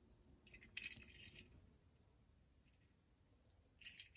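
Faint clicking and light rattling of small hard objects being handled, in two short clusters: from about half a second in, and again near the end.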